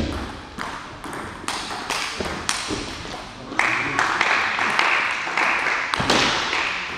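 Table tennis rally: a celluloid ball clicking sharply off rubber-faced bats and the table, about two hits a second, echoing in a large hall. A rushing noise runs under the hits from about halfway through to near the end.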